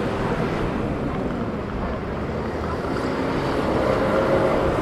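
Busy city street ambience: a steady wash of noise with the hum of a motor vehicle engine, which grows a little louder near the end.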